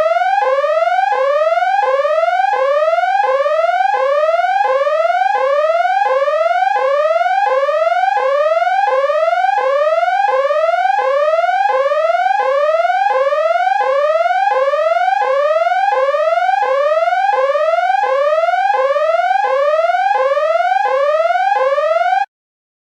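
Electronic siren sounding a fast repeating whoop: a buzzy tone rises in pitch and snaps back down about three times every two seconds. It cuts off suddenly near the end.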